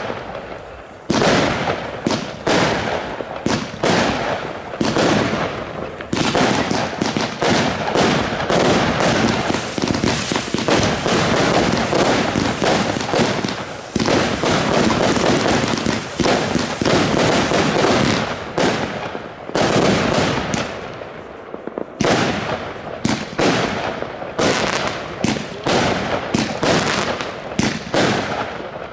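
Consumer firework batteries firing in quick succession: dense, near-continuous bangs of shots launching and bursting overhead, with crackle. The firing thins out briefly about twenty seconds in, then a fresh battery starts and the rapid shots resume.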